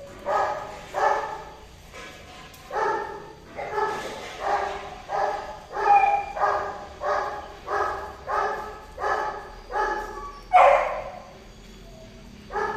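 Golden retriever barking in a steady run of short, high-pitched barks, about one every half second or so, while mating. One longer, louder bark comes about ten and a half seconds in, then a brief pause.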